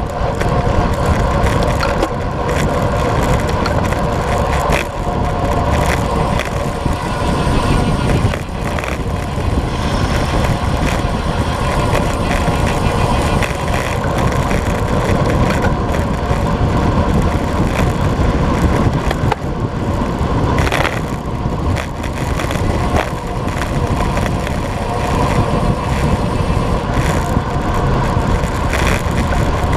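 Wind rushing over the microphone of a bike-mounted action camera, with road bike tyre noise on asphalt, at about 40 to 54 km/h. Loud and steady throughout.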